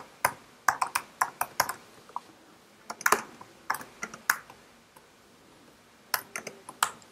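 Typing on a computer keyboard: irregular runs of sharp keystrokes, with a pause of about a second and a half before a few last keys near the end.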